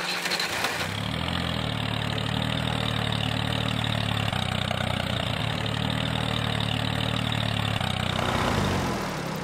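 Tractor engine idling steadily with a low, even chug, easing off slightly near the end.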